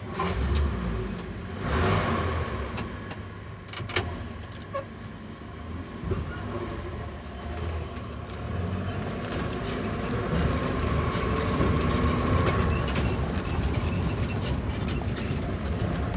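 1947 Hudson pickup's engine running as the truck pulls away at low speed, heard from inside the cab, with a few sharp clicks in the first five seconds. The engine grows louder from about eight seconds in as the truck speeds up.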